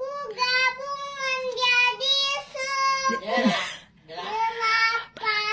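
A young girl singing an Indonesian children's finger-counting action song unaccompanied, in a high voice with clear, held notes. A short breathy sound with falling pitch breaks the singing a little past the middle.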